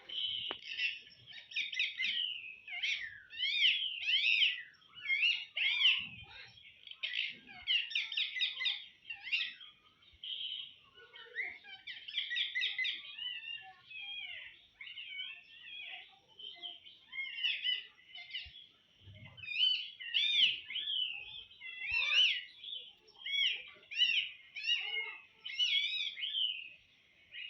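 Pet ring-necked parakeet chattering and warbling in a long string of short, quickly wavering calls with brief pauses between them.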